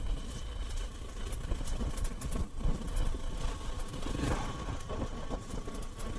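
Motorcycle engine running steadily while riding, under a low rumble of wind on the microphone. About four seconds in, an oncoming motorcycle briefly swells past.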